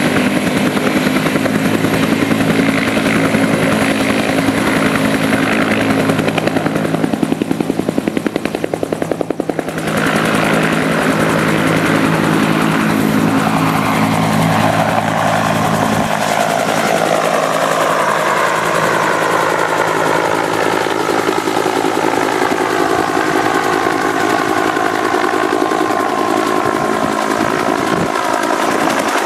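Bell UH-1H Huey helicopter's turbine engine and two-bladed main rotor at full power, lifting off with a sling load and climbing away overhead: a steady rotor beat with turbine whine. The sound dips briefly about a third of the way in. Later the low beat eases and the whine stands out more as the helicopter climbs.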